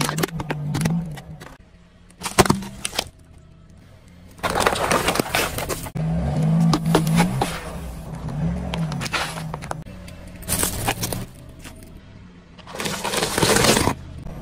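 A car tyre rolling over and crushing a paper cup and plastic soda bottles. Sharp cracks and crunches of plastic give way to long hissing sprays as a carbonated drink bursts out, the loudest near the middle and near the end.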